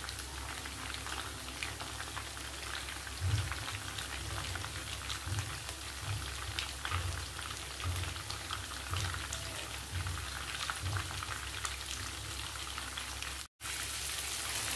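Mutton seekh kebabs frying in hot oil in a pan, with steady sizzling and crackling. Soft low thuds come about once a second from about three seconds in, and the sound cuts out for a moment near the end.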